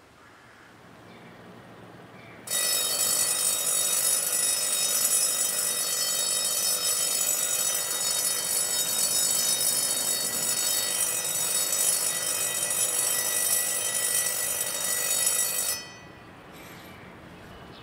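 Railway station departure bell ringing continuously for about thirteen seconds, starting suddenly and cutting off abruptly: the signal that the train is about to leave.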